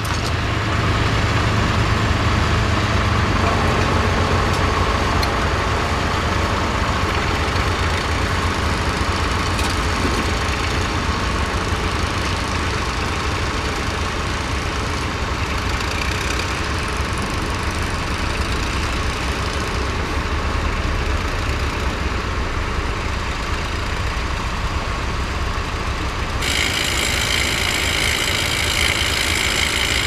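Vintage tractor engine running steadily as it pulls a mounted plough through the soil. About 26 seconds in, the sound switches abruptly to another vintage tractor's engine, also running while ploughing.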